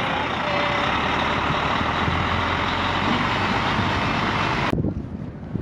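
Refrigerated lorry running close by: a steady diesel drone with a low hum underneath, which cuts off suddenly near the end.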